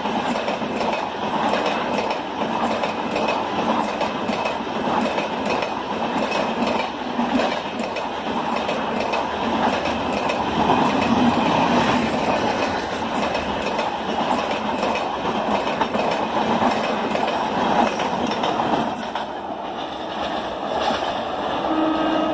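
Red LHB passenger coaches of an express train passing at speed close by: a steady, loud rush of wheel and track noise with repeated clicks as the wheels run over rail joints. The noise drops away about three seconds before the end.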